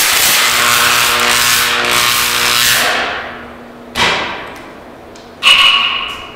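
High-voltage arc buzzing loudly with a steady electrical hum, cutting off about three seconds in. Then two short sharp snaps about a second and a half apart, the second louder and ringing briefly.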